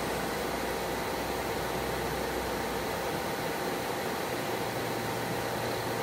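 Steady hiss with a faint low hum. The hum shifts higher about four seconds in.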